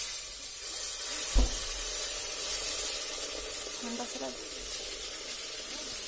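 Mutton pieces dropped into hot oil in a pot start sizzling loudly and suddenly, and the sizzle goes on steadily. A knock about a second and a half in.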